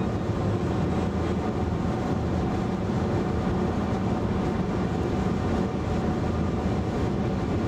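Steady road and tyre noise of a car cruising at highway speed, heard from inside the cabin.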